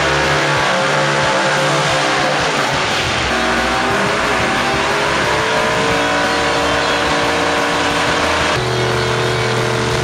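V8 muscle-car drag engines held at high revs through burnouts at the start line. The pitch steps to a new level a few times where the cars change.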